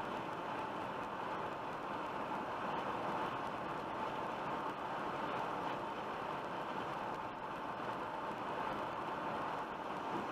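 Steady road noise of a car cruising at highway speed, tyres and wind heard from inside the cabin, an even rush with no change in pace.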